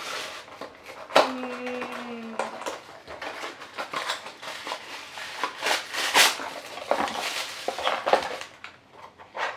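Plastic wrapping crinkling and crackling, with small plastic toy pieces clicking and knocking as a surprise package is opened. About a second in there is a short held tone.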